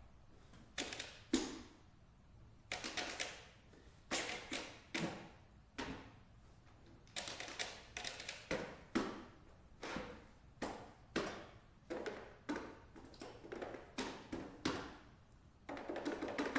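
Button accordion played percussively: irregular clusters of sharp, quick clicks and taps on the instrument, a few at a time, separated by short pauses, with no sustained notes.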